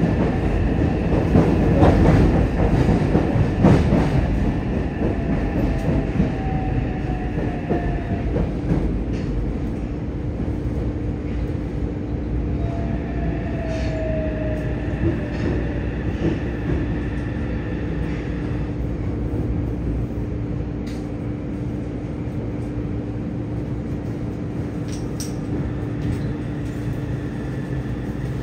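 Running noise of a Yokohama Municipal Subway 3000S train heard from inside the car: wheel-and-rail rumble, loudest in the first few seconds and then easing off as the train slows. Two brief whines from its Mitsubishi IGBT-VVVF traction inverter come partway through, and a steady hum follows.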